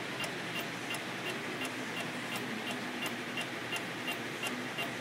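Standard Horizon paper folding machine running as printed sheets feed through, a steady mechanical whir with regular sharp clicks about three a second.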